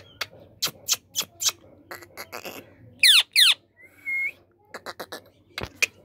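Male Indian ringneck parakeet making a run of short sharp clicks. About three seconds in come two loud squawks that slide steeply down in pitch, then a short high whistle, before the clicking resumes.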